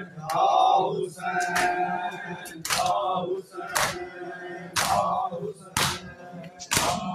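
Mourners beating their bare chests with open hands in unison (matam): loud, sharp slaps about once a second, over a group of men chanting a lament.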